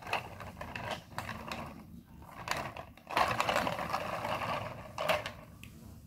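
Plastic Mega Bloks toy train cars pushed by hand across a tile floor, their wheels and axles rattling and clicking. The rattling comes in two spells with a short break about two seconds in.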